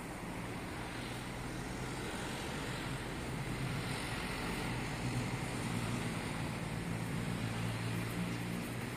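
Distant city traffic noise: a steady rumble with a low engine hum that grows louder about five seconds in and eases off near the end.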